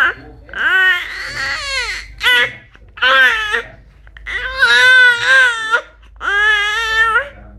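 A baby screaming in a string of about six loud, high-pitched cries and squeals, each lasting up to about a second, with short gaps between them.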